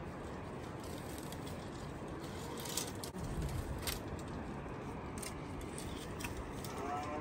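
Rustling in dry scrub with a few sharp cracks spread through the middle and later part, as dry branches are broken off by hand for firewood.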